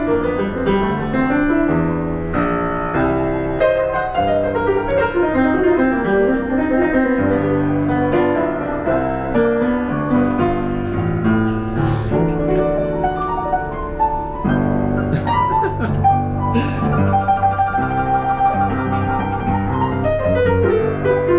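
Piano played live inside an elevator car: a continuous flowing piece of melody over chords and a steady bass line.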